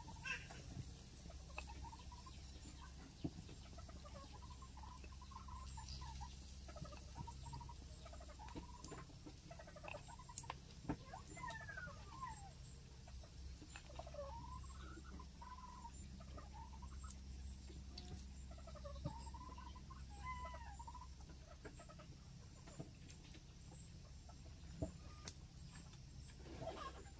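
Chickens clucking faintly in short, scattered calls over a low steady hum.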